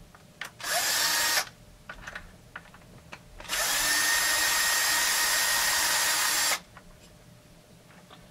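Bosch electric driver running in reverse to back out 4 mm Allen screws: two short bursts within the first second and a half, then a steady run of about three seconds from the middle. Light clicks of handling come between and after.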